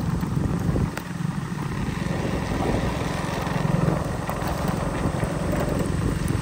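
Motorcycle engine running steadily while riding, under a steady rush of wind and wet-road noise.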